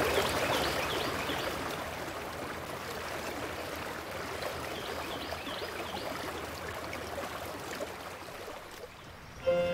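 Running water of a stream, a steady rushing that slowly fades away. Music with sustained tones comes back in near the end.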